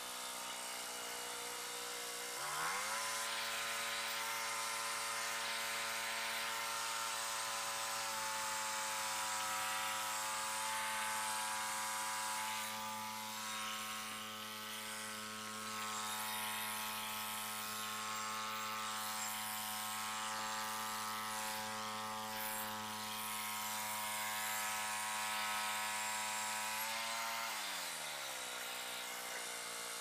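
Frontier OS27 portable band sawmill's gas engine revving up about two and a half seconds in and running at steady high speed to drive the band blade, then dropping back to idle near the end.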